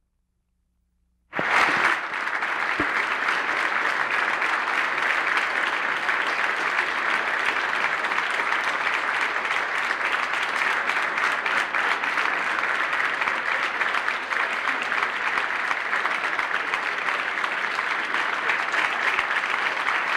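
The sound drops out completely for the first second or so, then a roomful of people applauds steadily.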